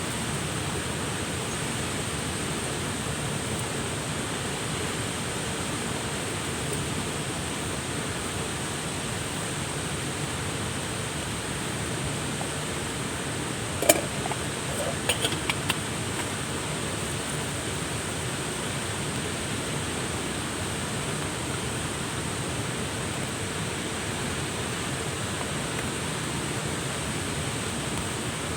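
Steady rushing water noise, with a thin, high, steady tone above it. A sharp click about halfway through, then a few lighter clicks a second or two later.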